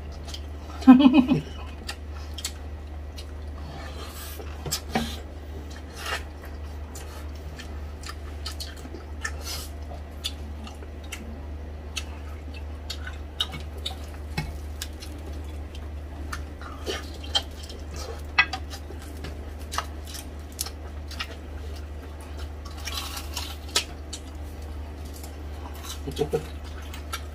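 Close-up eating sounds: scattered clicks and crackles as crispy deep-fried pork hock (crispy pata) is torn apart by hand and chewed, with food and fingers on a plate. A denser patch of crackling comes near the end, over a steady low hum.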